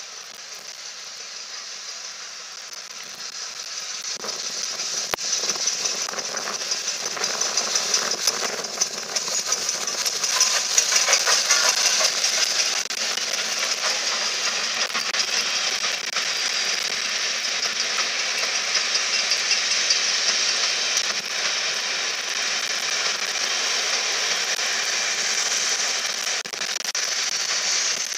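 LNER Thompson B1 4-6-0 steam locomotive 61306 Mayflower passing with a train of coaches. The sound builds as the engine approaches, is loudest around ten seconds in as it goes by, then settles into the steady running noise and clatter of the coaches' wheels on the rails.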